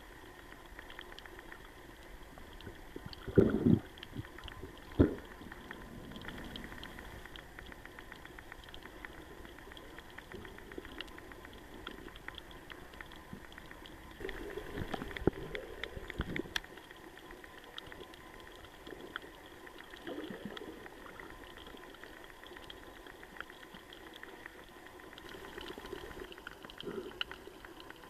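Sea water bubbling and sloshing around a camera at or just under the surface while snorkeling, over a constant fine crackle. A few louder bubbly surges come through, the strongest about three and a half and five seconds in.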